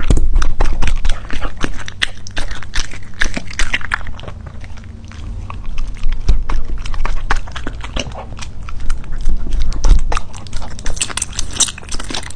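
A dog chewing and crunching food with rapid, irregular wet bites and crunches.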